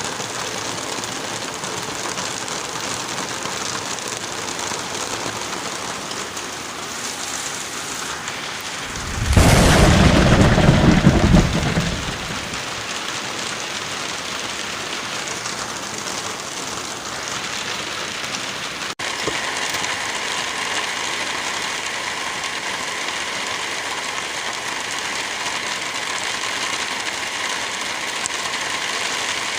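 Steady hiss of light rain and wind through forest trees. About nine seconds in comes a loud, deep rumble lasting some three seconds. Near the middle the hiss breaks off abruptly for an instant and resumes.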